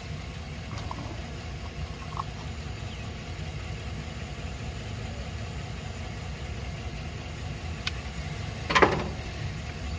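A few light metal clicks and a louder metallic clank near the end, from a screwdriver working the breaker points in an open distributor. Under them runs a steady low rumble.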